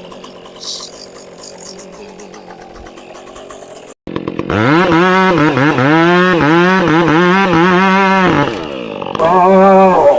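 A two-stroke chainsaw comes in abruptly about four seconds in and revs up to full throttle, cutting through a log, its pitch dipping and recovering as the chain bites. It eases off briefly and is revved again near the end.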